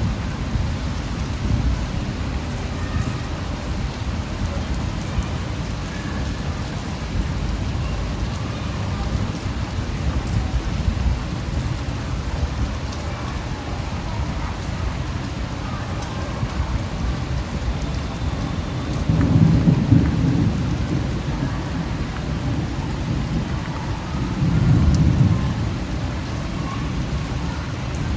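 Steady rain falling on a street, with a dense low rush. Two short, louder low rumbles come through, about two-thirds of the way in and again near the end.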